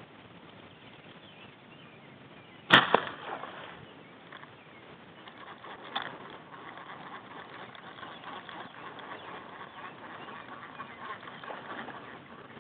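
One sharp, loud impact about three seconds in, with a short decaying tail, and a smaller click about six seconds in, over faint steady outdoor background noise.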